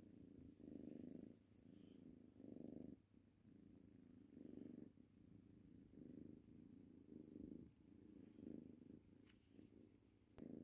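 Ginger tabby kitten purring, the soft purr swelling and fading with each breath about once a second: a contented purr while it plays.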